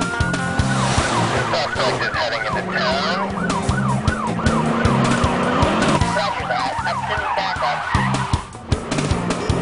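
Police siren winding up, then switching to a fast up-and-down yelp that runs for about five seconds, over background music with a steady beat.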